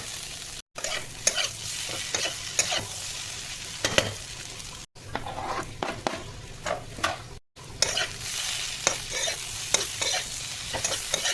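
Potatoes sizzling in hot oil in a pan while being stirred, a spatula scraping against the pan in frequent short strokes. The sound drops out completely three times, briefly.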